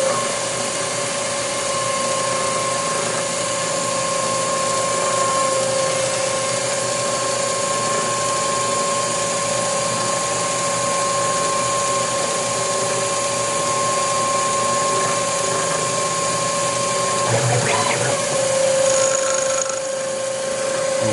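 Emco Turn 220 P CNC lathe running with a steady whine over a hiss. A short clatter comes about seventeen seconds in, and the higher part of the whine stops with it.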